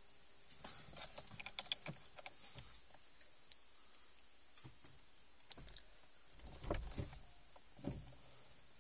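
Faint scattered clicks and small rattles inside a parked car's cabin with the engine off, then two dull thumps in the last couple of seconds.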